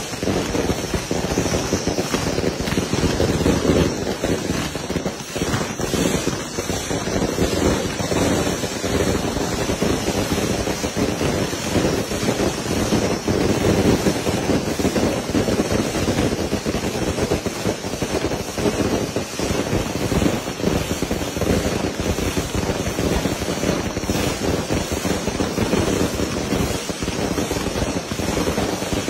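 Fireworks going off in a dense, continuous rattle of rapid cracks and pops, from spark fountains and firecrackers set off at close range.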